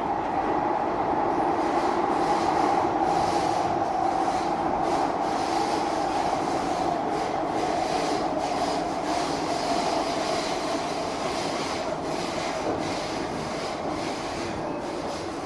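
Cabin noise of a Singapore MRT train running through its tunnel between stations: a steady rumble of wheels on rail with a motor hum that drifts slowly lower, and light clicks now and then.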